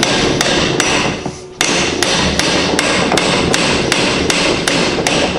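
Hammer driving a metal wedge into the end of a wooden hatchet handle seated in the head's eye: quick, even taps about three a second, with a short pause about a second in.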